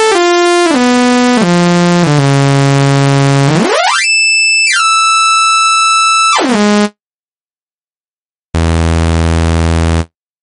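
Electronic synthesizer tones step down in pitch several times, then sweep up, hold, and glide back down before cutting off suddenly about seven seconds in. After a short silence, a low buzzing synth tone sounds for about a second and a half near the end.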